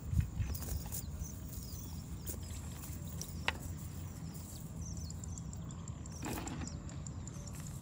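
Outdoor ambience: a steady low rumble with two thumps right at the start, a single click in the middle, a brief rustle near the end, and faint high chirps throughout.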